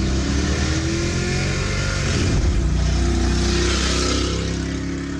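A motor vehicle engine running, its pitch gliding slowly up and down, easing off near the end.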